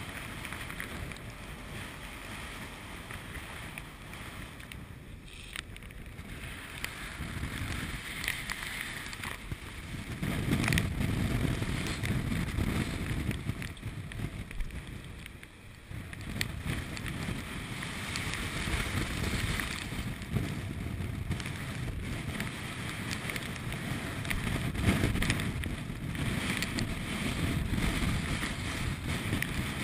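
Rough open-sea noise on a ship's deck: waves breaking against the hull and wind buffeting the microphone in a steady rush. It swells into heavier low rumbling surges about ten seconds in and again near the end.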